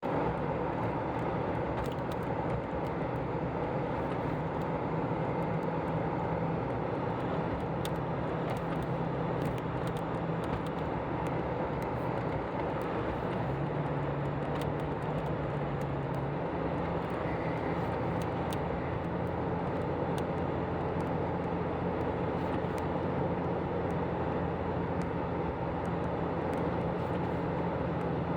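Toyota vehicle running steadily: an engine hum over a constant wash of road and wind noise, the engine note shifting slightly about halfway through, with scattered faint ticks.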